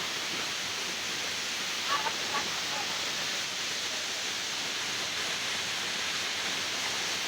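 Waterfall running with a steady, even rush of falling water.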